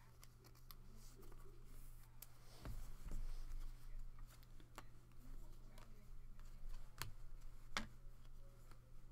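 Trading cards being handled and flipped through by hand, the stiff cards sliding against each other with small ticks and several sharp clicks, the loudest about seven and eight seconds in. A steady low hum runs underneath.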